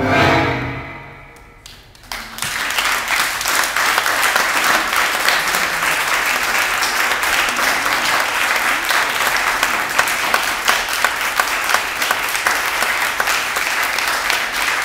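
The last note of recorded tango music dies away, then an audience starts clapping about two seconds in and keeps applauding steadily.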